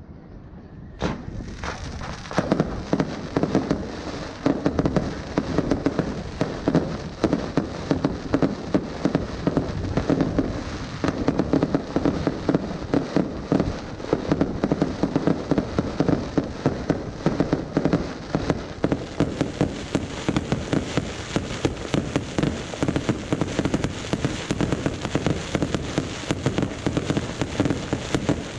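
Fireworks: a few separate bangs in the first two seconds, then a dense, unbroken barrage of rapid crackling bangs.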